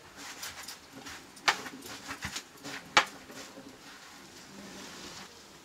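Nettle leaves being tipped from a plastic bucket into a metal pot: rustling with light clicks, and two sharp knocks, one about a second and a half in and one about three seconds in.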